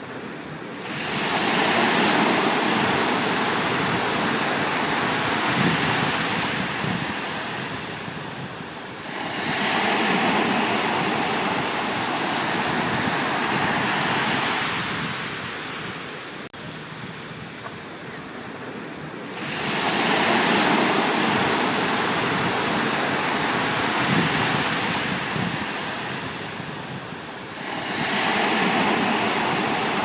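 Ocean waves rushing past a cruise ship under way, mixed with wind, in long surges of hiss that swell and ease about every eight to ten seconds.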